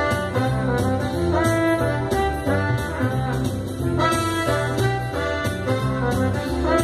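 Recorded music from an audio CD, played over loudspeakers driven by a Studio R Z200 power amplifier: a band with a steady beat, led by horns.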